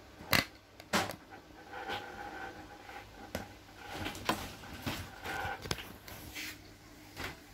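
Clicks and light knocks of hands working a plastic bracket and screw on an amplifier's metal chassis, about seven sharp clicks in all, the two loudest in the first second.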